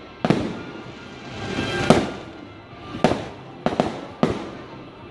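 Aerial fireworks bursting overhead: a string of about six sharp bangs, the loudest a little under two seconds in after a rising rush, and several close together between three and four and a half seconds.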